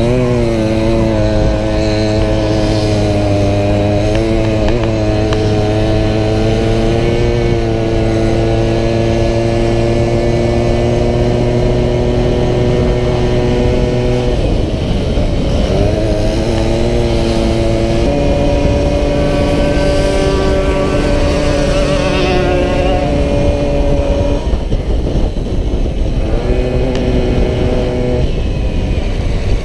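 Small two-stroke engine of a racing VéloSoleX moped running hard, heard from the moped itself. The engine note holds steady, then drops and picks back up several times, most clearly about halfway through.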